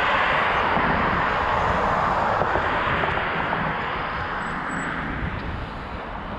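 A car driving past on the road, its tyre and engine noise a steady rush that swells and then slowly fades.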